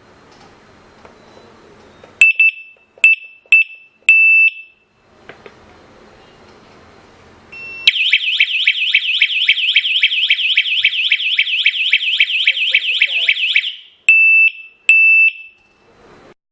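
Home security alarm system beeping and sounding: a few short high beeps, then a loud electronic alarm tone pulsing rapidly for about six seconds, then two more short beeps.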